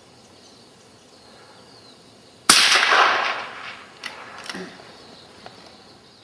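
A single .22-250 rifle shot about two and a half seconds in, its report echoing away over a second or more, followed by a few faint clicks.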